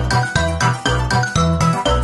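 Upbeat background music: quick, evenly spaced notes over a repeating bass line.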